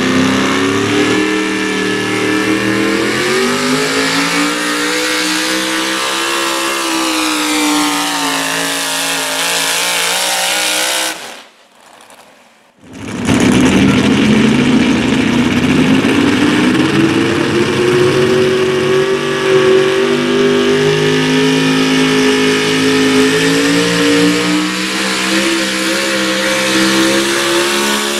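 Modified 4x4 pulling-truck engines at high revs under full load, dragging a weight-transfer sled. The first engine's pitch climbs for about five seconds, then sags; after a short break in the sound near the middle, a second truck's engine climbs steadily in pitch.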